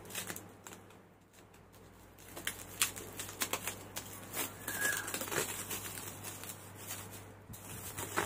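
Clear plastic wrap crinkling and crackling as it is peeled off a small metal part, in irregular crackles starting about two seconds in.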